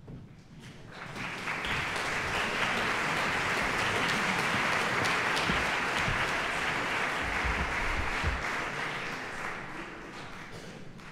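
Audience applauding in a concert hall, the clapping swelling over the first couple of seconds, holding steady, then dying away near the end.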